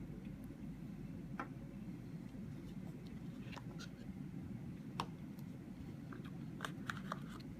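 Handling noises from unboxing a smartphone: scattered light clicks and taps of the box, packaging and phone, the sharpest about five seconds in and several close together near the end, over a steady low hum.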